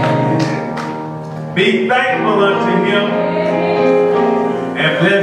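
Church keyboard music: sustained held chords, which change about a second and a half in and again near the end.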